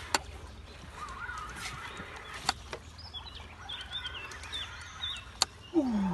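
Birds calling, with wavering chirps and a few sharp clicks. A short, loud falling tone comes near the end.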